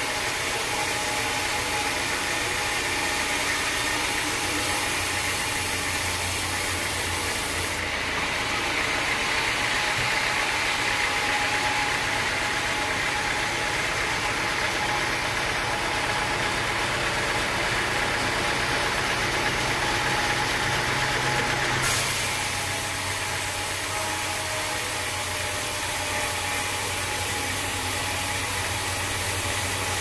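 Band sawmill running steadily as its blade saws through a teak log. From about a quarter of the way in until about three-quarters through, the sound is a little louder and brighter, with a rasping hiss from the blade in the wood.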